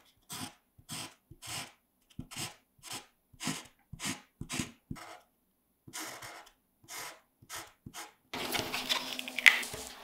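Sharpie permanent marker scratching back and forth on cardstock, about two short strokes a second, as it colours in the wings. About eight seconds in this gives way to a denser rustle with sharp crackles as cut cardstock is peeled off a sticky Cricut cutting mat.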